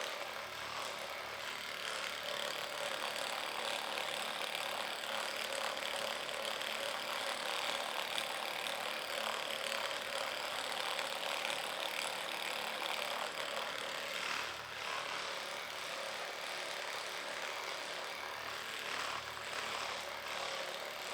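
Electric massage gun running steadily against the patient's back.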